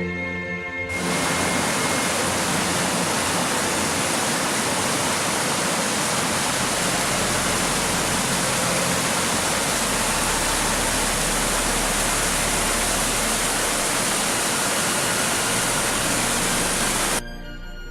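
Mountain torrent, its fast water rushing in a steady, loud, even noise. It cuts in abruptly about a second in and stops suddenly near the end, with background music in the first second.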